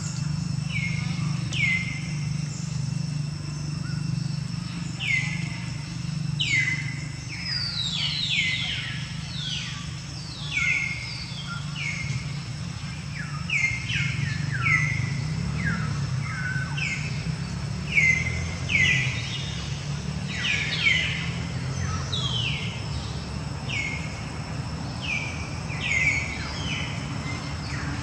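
Birds calling: many short, downward-sweeping chirps, repeated irregularly and overlapping, over a steady low rumble and a faint high, even whine.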